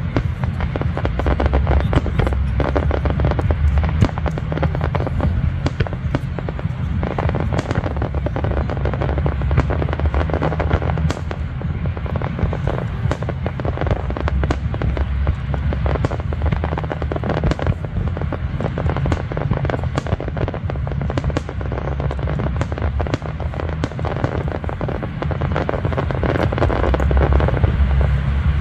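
Aerial fireworks display: shells bursting in rapid, overlapping succession, many sharp cracks and pops over a steady low rumble.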